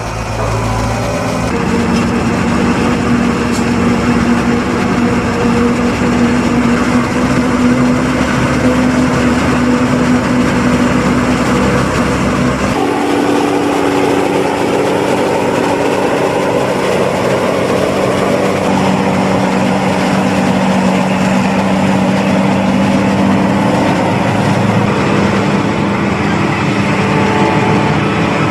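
John Deere 7500 self-propelled forage harvester chopping corn: a steady, loud machine drone of engine and chopper with a rushing noise over it. The sound changes abruptly twice, a little after a second in and about 13 seconds in.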